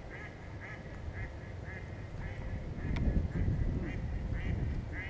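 A bird calling over and over in short notes, about two a second. Under it is a low rumble that swells about three seconds in, with one sharp click there.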